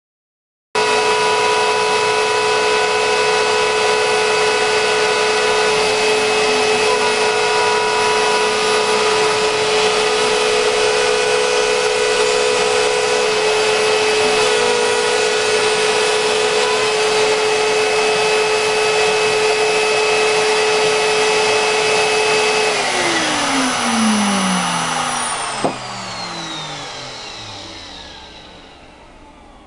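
Kress 1050 router spindle on a CNC router whining steadily at high speed over dust-extraction vacuum noise; about three-quarters through, its whine falls in pitch as it spins down. A few seconds later there is a click and the remaining noise dies away.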